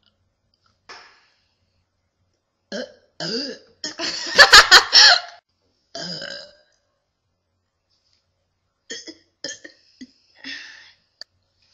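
A person burping: a series of separate burps, the longest and loudest one about four seconds in, with shorter ones before and after it.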